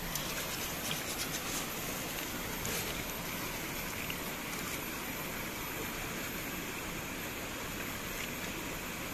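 Shallow stream running steadily, with splashing and the scrape of sand in a small metal wok as it is scrubbed and rinsed in the water, mostly in the first few seconds.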